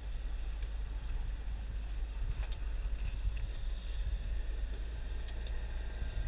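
Sailboat underway through light chop: a steady low rumble with water swishing along the hull.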